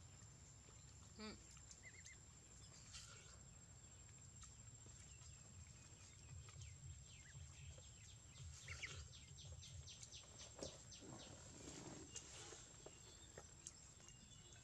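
Near silence: faint outdoor background with a steady high-pitched whine and a low hum, broken by scattered soft clicks and a few short chirps.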